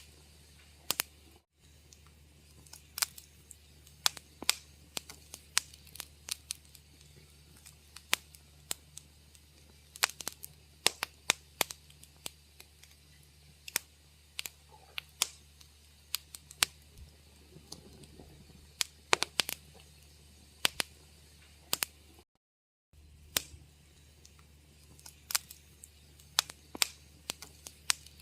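Wood fire crackling in a fireplace: irregular sharp pops and snaps over a faint steady low hum. The sound cuts out completely for under a second about three quarters of the way through.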